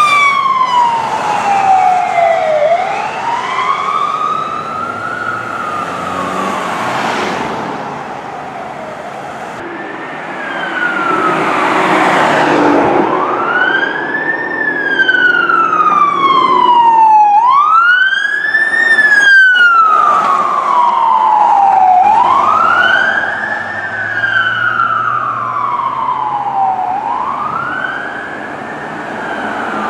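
Emergency vehicle sirens wailing as the units drive by. The pitch rises quickly and falls more slowly, once every four to five seconds, over vehicle and road noise.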